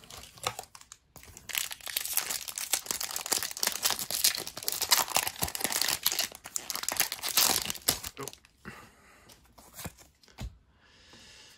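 Foil wrapper of a Pokémon trading-card booster pack being torn open and crinkled by hand, a dense crackling from about a second and a half in until about eight seconds in. Fainter handling noises follow.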